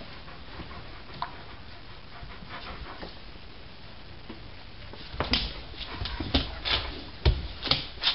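Dog panting in short, irregular breaths while playing with a kitten. The breaths start about five seconds in, after a faint opening.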